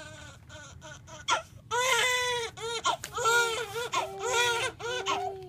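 Newborn baby crying: a few faint whimpers first, then from under two seconds in a run of loud, short wails that rise and fall in pitch, the last one held a little longer.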